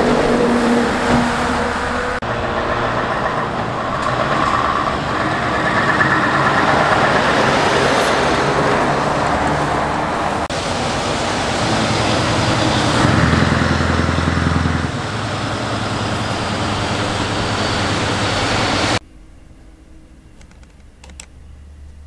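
Scania V8 truck engines running as the trucks drive past, one truck after another, with the sound changing abruptly between them. Near the end the sound drops suddenly to a much quieter level.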